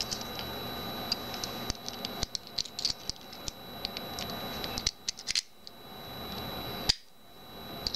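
Light metallic clicks and rattles as a key and a small metal wire hook lock are handled and the key is pushed into the lock, with one sharper click about seven seconds in.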